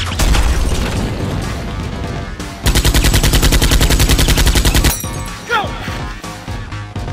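Action background music with a burst of rapid machine-gun fire, about a dozen shots a second, lasting roughly two seconds and starting a little before halfway through.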